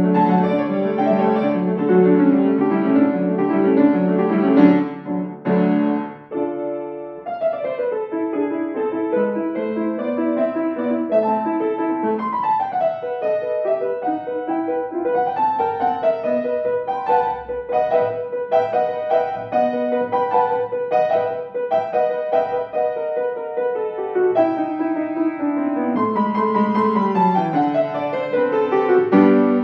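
Grand piano played solo in a classical piece, with fast running notes over held chords, a brief let-up about six seconds in and a descending run near the end.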